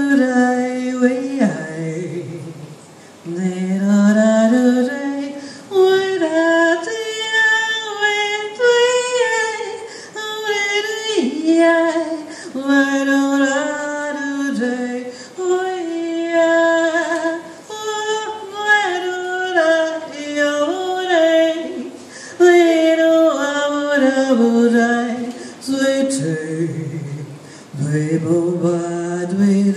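A woman singing a slow, unaccompanied melody in drawn-out phrases, sliding between held notes.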